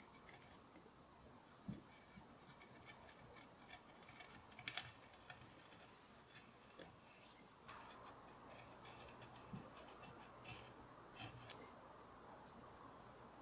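Hand carving gouge paring walnut: quiet scraping cuts as flutes are carved into the wood, with several sharp clicks, the loudest a third of the way in.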